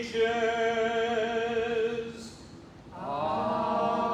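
Unaccompanied liturgical chant: a voice holds a long, steady note on the closing "unto ages of ages" of a prayer doxology. It breaks off about two seconds in with a short "s" hiss, and a new held note begins about a second later, leading into the "Amen."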